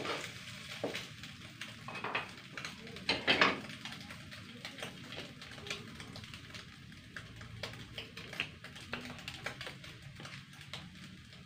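Faint clinks, knocks and scrapes of kitchen utensils against a frying pan, with a couple of louder knocks about two and three seconds in.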